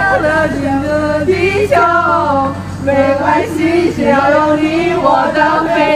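A group of women singing a song together in chorus, a sustained melody carried by many voices.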